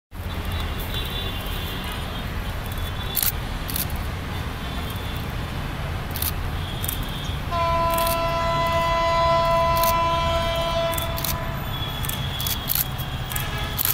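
Air horn of an approaching GT38AC diesel locomotive sounding one long chord of several steady tones for about four seconds, starting about halfway through.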